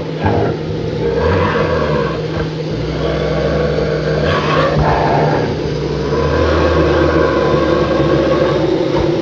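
A vehicle engine running, loud and steady, with no break.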